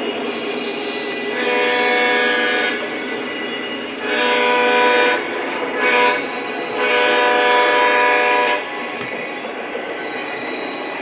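O scale model train running steadily on its track, while the diesel locomotive's electronic sound-system horn blows the grade-crossing signal: two long blasts, one short, one long.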